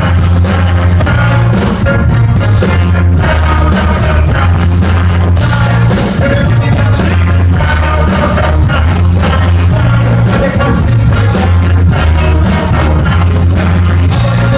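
Live band playing loud ska-style music with heavy bass, a steady drum beat and some singing, as heard by a camera in the crowd.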